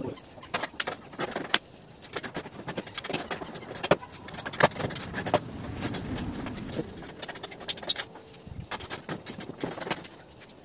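Irregular clicks, taps and small rattles of metal tools and fasteners against a scooter's plastic body panels as the side panels are unfastened.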